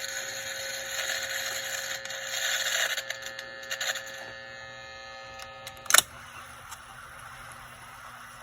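Vintage Dictaphone tape player running with a faint steady hum and hiss but no recorded voice, because its audio output isn't connected yet. Rustling handling noises fill the first few seconds, and there is one sharp click about six seconds in.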